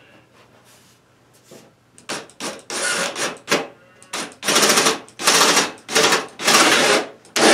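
Cordless drill driving a screw through a galvanized metal pipe strap into an OSB wall, run in a series of short bursts starting about two seconds in and getting louder toward the end.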